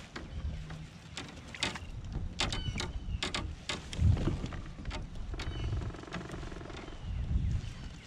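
Wind buffeting the microphone in a low rumble, over a string of sharp clicks and knocks from gear handled on a fishing kayak, the loudest about four seconds in. A brief buzzing rattle comes a little past the middle.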